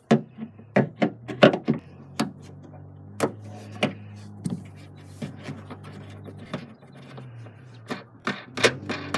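Pliers clicking and knocking against a stuck plastic thumb screw while it is worked loose, with the carpeted trunk liner being handled, over a steady low hum. The clicks are quick and irregular, thickest in the first two seconds.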